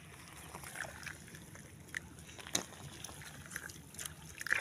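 Irrigation water trickling softly into a wheat field, with scattered small clicks and rustles and one sharper click a bit past halfway.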